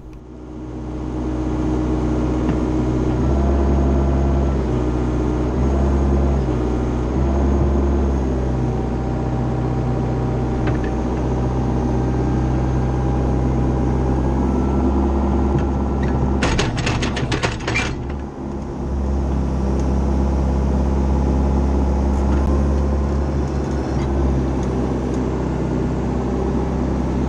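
Machine engine running a 600 mm hydraulic auger drilling post holes, its note shifting up and down in steps. About two-thirds through comes a brief rattle of sharp knocks.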